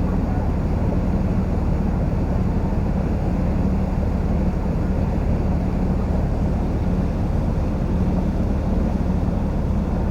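A cruise boat's engine running at a steady cruising speed. It makes a constant low drone with a faint hum and noise from the water and wind, and there are no changes.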